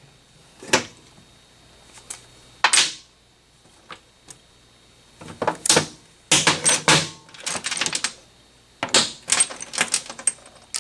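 Metal hand tools and engine parts clinking and clattering in irregular clusters of sharp clicks, some with a short metallic ring.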